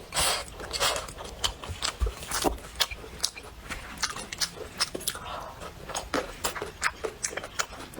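A person eating close to the microphone: quick, irregular wet chewing and lip-smacking sounds.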